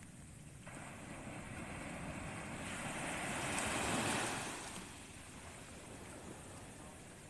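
Sea waves breaking on a sandy beach: the wash builds from about a second in, peaks a little past the middle, then fades back to a low steady surf.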